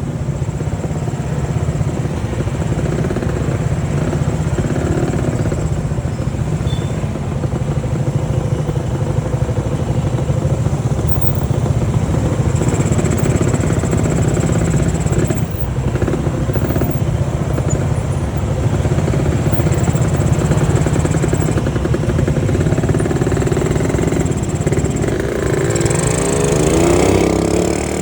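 Honda C70's small single-cylinder four-stroke engine running steadily under way, with wind and road noise.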